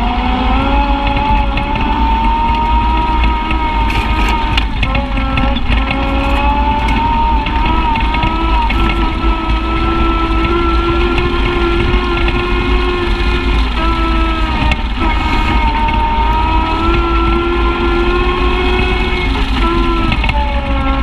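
Side-by-side UTV engine running as it drives along a dirt trail, heard from onboard, its pitch rising and falling with the throttle over a steady low rumble.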